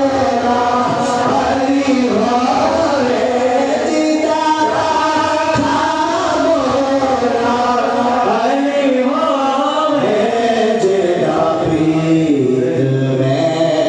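Voices singing a devotional Urdu chant in praise of Imam Husain, with long held notes that bend up and down.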